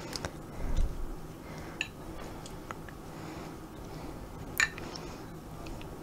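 Quiet egg-washing of a pie crust with a silicone pastry brush: a few light clicks and taps of the brush and the small glass bowl of egg wash, with a soft thump about a second in and the sharpest click later on.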